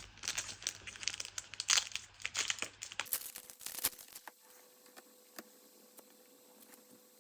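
Foil trading-card booster pack wrapper crinkling and tearing open, a dense crackle that stops about four seconds in, followed by a few faint clicks.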